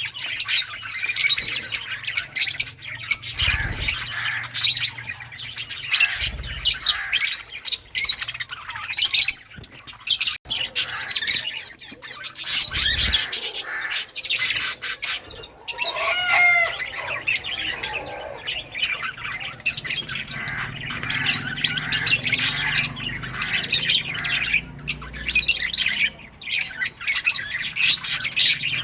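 Several lovebirds chirping and squawking nonstop, with many quick shrill calls overlapping. A few dull low thumps come through now and then.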